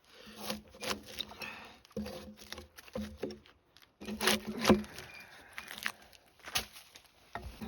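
Bark being stripped from a spruce log: irregular scraping and tearing strokes with sharp knocks between short pauses, the loudest strokes a little over four seconds in.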